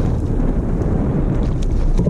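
Wind buffeting the microphone on open water: a loud, steady low rumble with faint light ticks and splashes above it.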